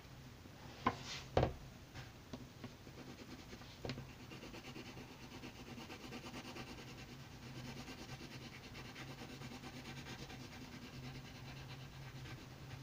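Wooden pencil shading on paper: a steady, faint scratchy rubbing as the lead is worked back and forth, with two sharp knocks about a second in and another a few seconds later.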